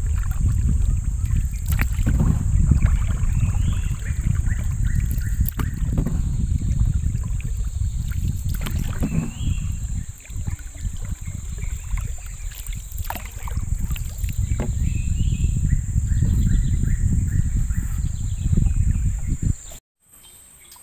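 Small boat under way on a river: a steady low rumble of wind and rushing water, over a steady high insect drone. Near the end it cuts off suddenly to a much quieter scene where the insect drone goes on.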